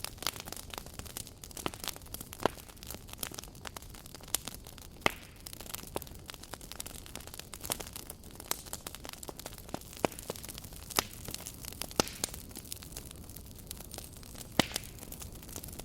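Campfire burning wood, crackling: irregular sharp pops and snaps over a steady low hiss, with a few louder pops standing out, about five seconds in, at twelve seconds and near the end.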